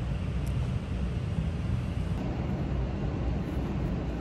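Steady low rumbling background noise with no clear events in it.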